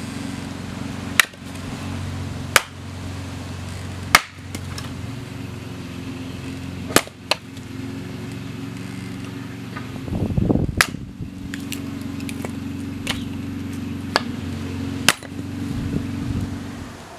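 Axe splitting firewood on a chopping block: about seven sharp strikes, one every one to three seconds, over a steady low hum.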